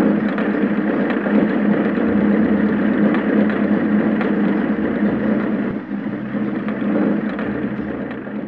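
Honda motorcycle engine running with a steady, rough noise as the bike rides slowly along and pulls up, dipping briefly about six seconds in.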